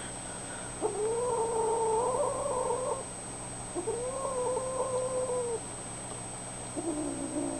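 Young kittens meowing: three long, drawn-out calls, the first starting about a second in and lasting about two seconds, a second one of similar length, and a lower-pitched one near the end.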